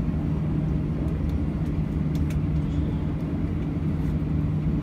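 Steady low hum inside an airliner cabin as the aircraft sits on the ground with its systems running, a constant drone at one pitch, with a few faint ticks.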